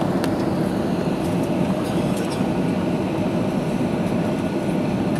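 Steady noise of an airliner's jet engines and rushing air, heard from inside the passenger cabin.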